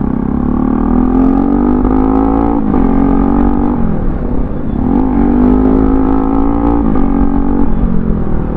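Bajaj Pulsar NS200 single-cylinder engine heard from the rider's seat while accelerating. Its pitch climbs, then drops back about three times as it shifts up and picks up again, over road and wind noise.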